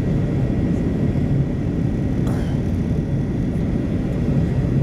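Airliner engines and rushing air heard inside the passenger cabin in flight: a steady low rumble with a faint high whine running through it, and a brief faint click a couple of seconds in.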